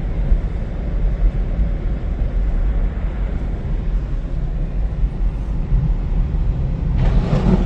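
Steady low rumble of a car driving on a snowy road, with a short rushing noise near the end.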